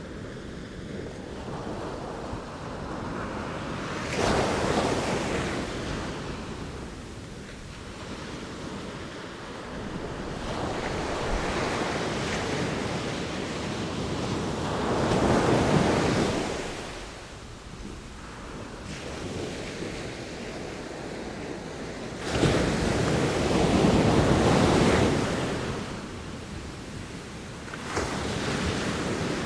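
Sea waves breaking and washing up on shore, the surf swelling and falling back in four surges, two of them starting suddenly, with wind.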